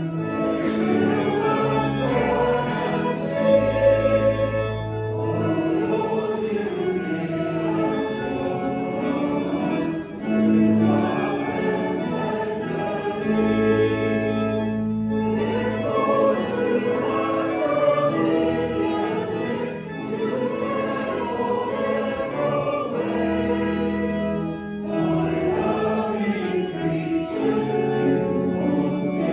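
Group of voices singing a hymn with organ accompaniment, in sustained phrases with short breaths between them.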